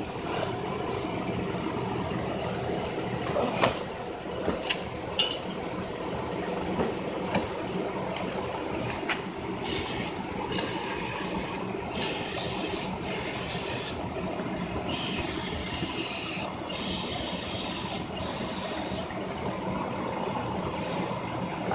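The Chrysler 300 S's 3.6 L V6 running at a steady idle, with a few light tool clicks in the first half. From about ten seconds in, about seven sharp hissing spray bursts are heard, each up to a second or so long.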